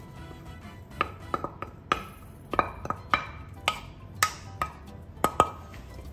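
A spoon stirring thick fish croquette dough in a pot, knocking against the pot about a dozen times at an uneven pace.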